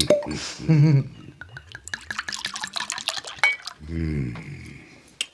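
Wine being poured from a glass bottle into a wine glass, splashing and glugging in quick irregular bursts, with a short laugh near the start.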